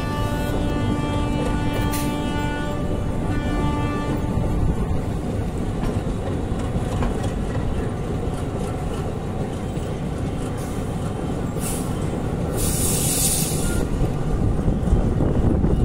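Train horn sounding two long steady blasts, followed by the continuous rumble of a train rolling slowly through a rail yard, wheels on the rails. A short hiss comes about 13 seconds in.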